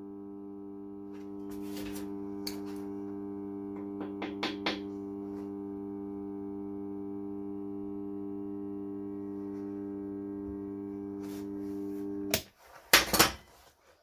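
Microwave oven transformer humming steadily under a near short-circuit load, its single-turn cable secondary driving heavy current through a red-hot M8 threaded rod, with a few sharp crackles along the way. The hum cuts off suddenly near the end, followed by a couple of loud clicks.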